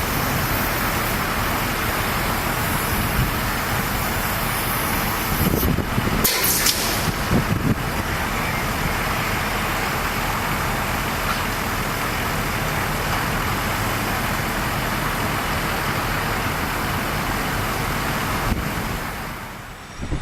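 Heavy rail work-train machinery running with a steady noise, with a few short knocks about six to seven seconds in, dropping away just before the end.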